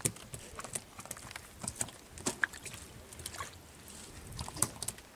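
Scattered, irregular knocks and clicks of a multi-hook hand line and caught snappers being handled against a wooden boat's side and deck, over a faint steady hiss.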